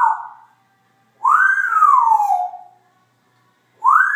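Congo African grey parrot whistling in separate calls: the end of one call, then a long whistle that falls in pitch, and near the end another that rises and holds.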